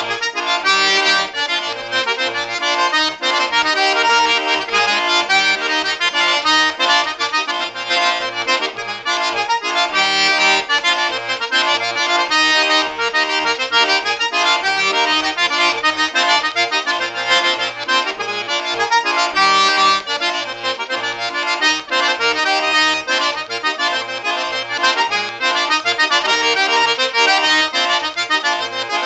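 Cajun-style single-row diatonic button accordion in E-flat playing a lively tune: a continuous reedy melody over a steady, regular bass pulse.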